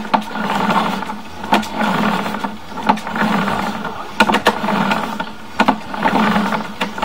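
Sewer inspection camera's push cable being pulled back out of the pipe: a steady rushing noise that swells and fades every second or so, with irregular sharp clicks.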